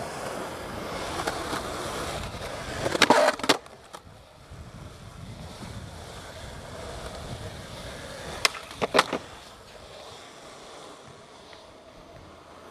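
Skateboard wheels rolling on a hard court surface as the skater pushes and rides. The board gives a cluster of sharp clacks about three seconds in and two more around eight and a half to nine seconds in.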